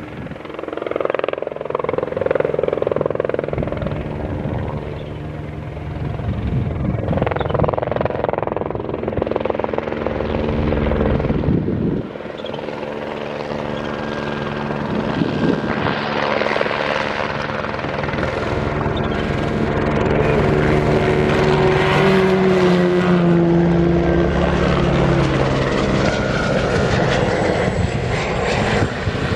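Skoda Fabia RS Rally2 car's turbocharged four-cylinder engine on the stage, its note rising and falling through gear changes, with a helicopter's rotor overhead.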